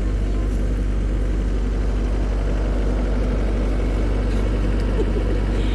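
Skid-steer loader's engine running steadily, a continuous low hum.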